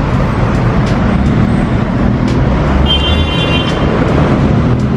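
Steady road traffic passing close by: a continuous low rumble of vehicles, with a brief high tone about three seconds in.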